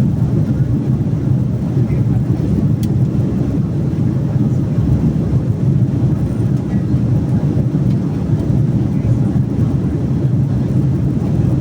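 Steady, loud low rumble of an airliner cabin in flight: jet engine noise and rushing airflow heard from inside the cabin, with no change throughout.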